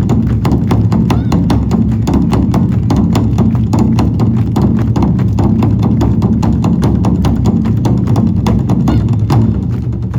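Traditional Korean drum ensemble playing a loud, fast rhythm of repeated drum strikes, which thins out near the end.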